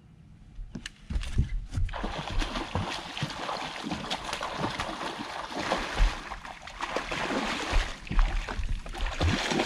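A big hooked largemouth bass thrashing and splashing at the surface against the line. The splashing starts suddenly about a second in and keeps on as a continuous commotion of splashes and knocks.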